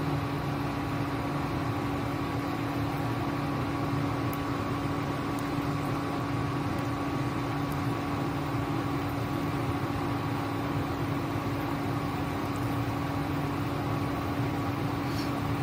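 Steady machine hum from a running kitchen appliance, with one constant low tone, a fainter higher tone and an even hiss, unchanging throughout.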